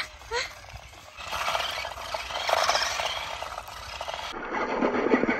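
Remote-control stunt car driving over dry, stony dirt: a gritty scraping and rattling of its tyres and small electric motors that swells and fades as it moves.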